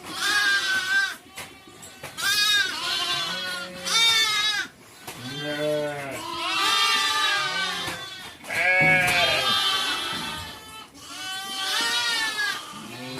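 Sheep and goats of a herd bleating, one quavering call after another, often overlapping.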